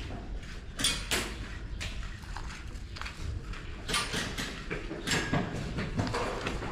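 Irregular sharp clicks and knocks of airsoft play: shots and BBs striking plastic drums and debris, about a dozen over several seconds, loudest in pairs about a second in and again around four and five seconds in.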